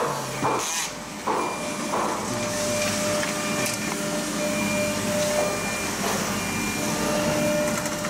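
CNC door lock machine running: several clunks in the first two seconds and a short hiss of air, then a steady mechanical hum with a whine.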